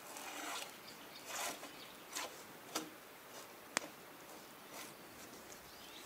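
Drawknife shaving bark off a log in about five separate rasping pulls. A single sharp click comes just past halfway.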